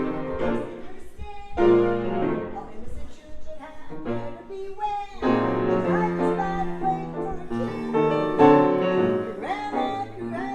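Live piano music: a melody over chords, played by a solo pianist.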